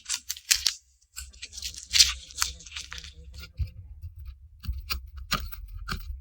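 Dry, papery garlic skins crackling and tearing as cloves are peeled: a dense run of crisp crinkles for about three seconds, then sparser sharp snaps and clicks.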